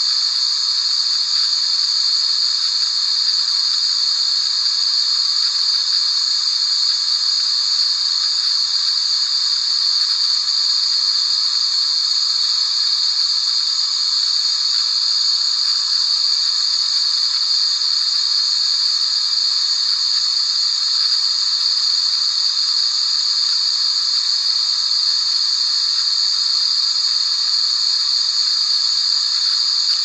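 Steady, unchanging white-noise hiss for lulling a baby to sleep, strongest high up and hissy, with no rhythm or breaks.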